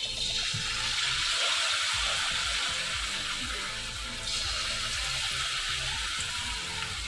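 Batter-coated chicken lollipops sizzling in hot oil as they are lowered into a deep pan, the oil bubbling steadily around them. The sizzle grows brighter about four seconds in.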